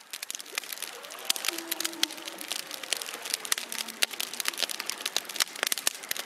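Dense crackling: many small, sharp, irregular clicks over a steady hiss, fading in during the first second, with a few faint tones underneath.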